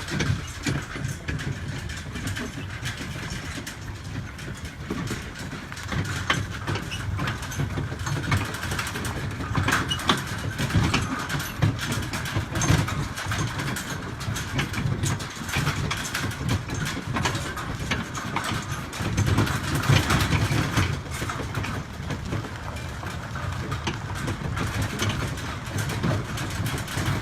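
A small utility cart's engine running steadily as it drives, with frequent rattles and knocks over the top.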